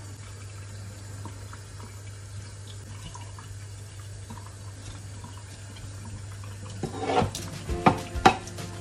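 Kitchen knife slicing and scraping open a mackerel's belly on a wooden cutting board, soft small clicks over a steady faint water-like hiss. Near the end come a few sharp knocks, and music begins.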